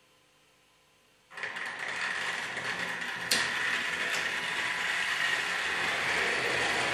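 Trix Express H0 model train starting up on its track about a second in, its motor and wheels on the rails giving a steady whirring rattle, with a sharp click a couple of seconds later.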